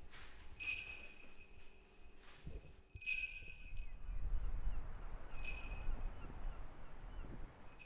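Jingle bells shaken four times, about two and a half seconds apart, each shake ringing briefly. A low rumble runs beneath them in the second half.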